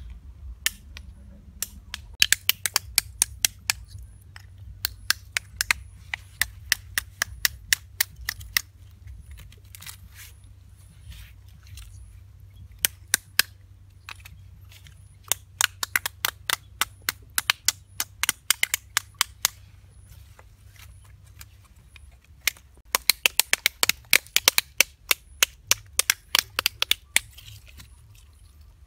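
Small snail shells being cracked and crushed between the fingers: runs of sharp, crisp clicks, several a second, in three long bursts with short pauses between.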